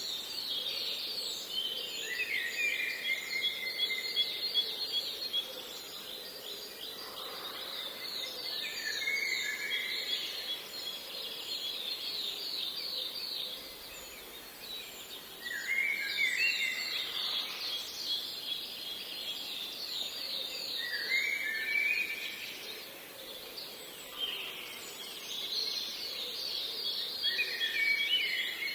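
Songbirds singing: bouts of fast, high trills come and go every several seconds, with lower, chirpy phrases between them, over a steady background hiss.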